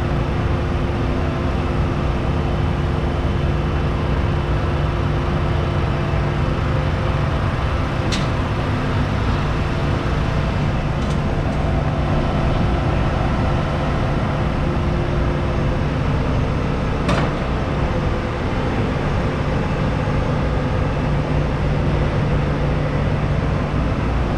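John Deere S790 combine harvester's 13.5-litre six-cylinder diesel engine running at a steady speed, with a few sharp clicks over it.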